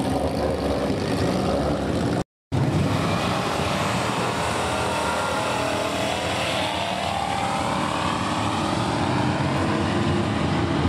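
A 1970s Plymouth B-body muscle car's engine running at the drag strip start line, then, after a brief break to silence about two seconds in, pulling hard down the track with its pitch rising as it accelerates.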